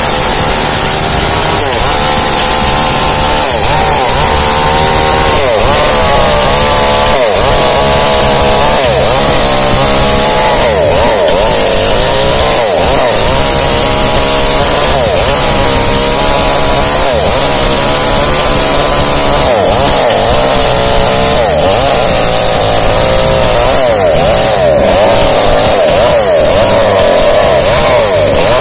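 Small two-stroke chainsaw running at high revs with its chain cutting into a wooden block; the engine pitch rises and falls over and over as the chain works through the wood.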